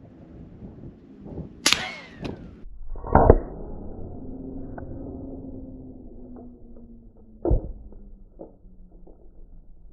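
Suppressed CVA Scout break-action pistol in .300 Blackout being fired at steel targets. A sharp metallic click comes just under two seconds in, a loud dull thump just after three seconds, and another sharp knock at about seven and a half seconds, with small handling clicks between them.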